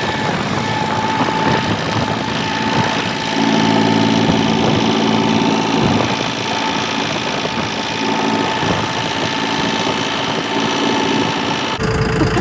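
Farm tractor engine running steadily, with its note changing abruptly near the end.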